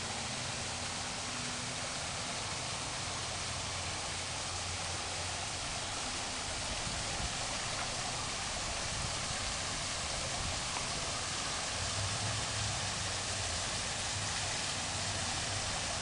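Water from an artificial rock waterfall spilling into a swimming pool, a steady splashing with a faint low hum underneath.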